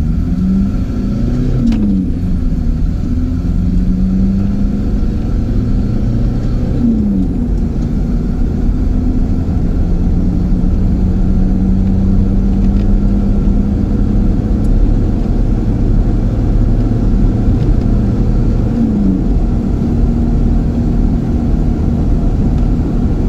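VW T25 camper's swapped-in TDI turbodiesel engine accelerating hard through the gears, heard from inside the cab. Its pitch climbs steadily in each gear and drops at three gear changes, about 2, 7 and 19 seconds in, over a heavy low road rumble.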